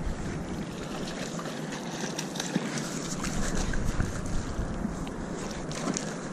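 Wind buffeting the microphone over a steady outdoor hiss, with scattered small clicks and light splashes of water lapping at the shoreline.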